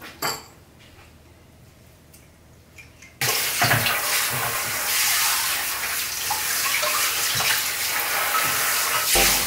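Hand-held shower head spraying water onto a puppy's fur in a plastic tub. The spray starts suddenly about three seconds in, after a quiet stretch, and then runs as a steady hiss.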